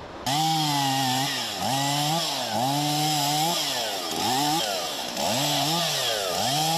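Chainsaw cutting through a fallen tree trunk. It starts abruptly just after the start, and its engine pitch drops and picks up again several times as the chain bites into the wood and is eased off.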